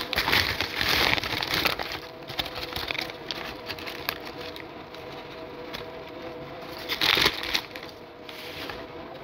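Paper fast-food wrapper crinkling and rustling as it is handled. The crinkling is loudest in the first two seconds, with another short burst a little after seven seconds.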